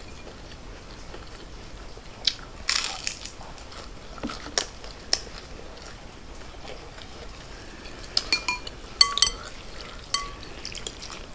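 Crunchy bites and chewing of a fried shrimp egg roll, a few seconds in. Near the end, several short ringing clinks of a utensil against a glass bowl of pho.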